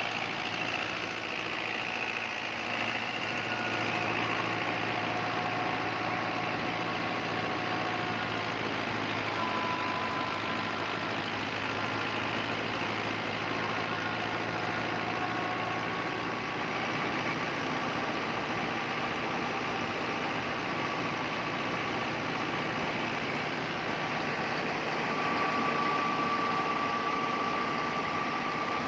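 New Holland 640 tractor's diesel engine running steadily under load while it drives a rice thresher, with the thresher's drum and blower churning out straw. A faint whine rides over the machine noise and grows louder near the end.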